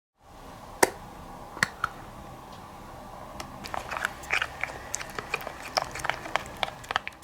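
Homemade slime being mixed by hand: scattered wet, sticky clicks and squelches that grow busier and more frequent about halfway through.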